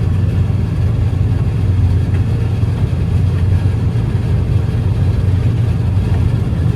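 John Deere 9750 STS combine running steadily under load while harvesting wheat, heard from inside the cab: an even, low engine and machinery drone.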